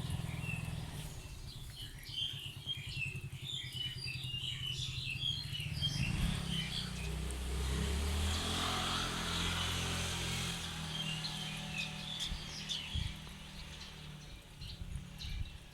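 Small birds chirping, a busy flurry of short high calls that thins out and comes back later, over a low rumble. A rushing hiss swells in the middle and fades away.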